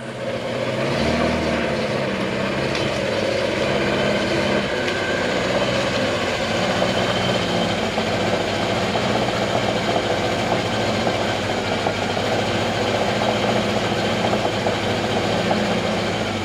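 A car engine running steadily, with a low, even hum.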